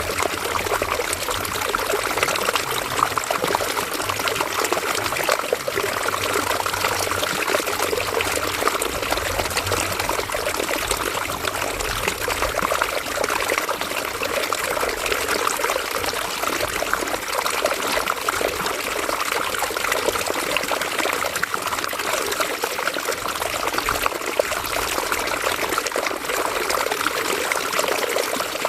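River water flowing and trickling over stones in a steady, unbroken rush.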